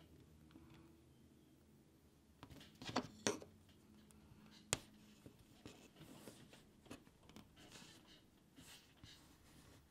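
A bone folder working along the edge of a steel ruler and over leather: a few sharp clicks of the tool against the ruler partway through, then soft scratchy rubbing strokes as the leather is creased and folded.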